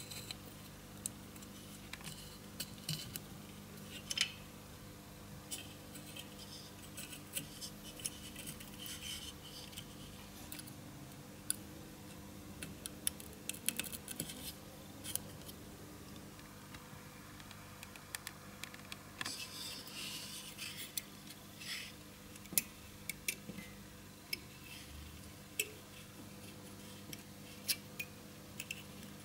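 Small scattered clicks and rustles of through-hole components being pushed into a printed circuit board and their thin wire leads bent over, with a faint steady hum underneath.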